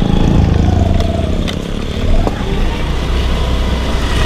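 Motorcycle engine running steadily while riding along a road, with a faint whine that wavers with speed.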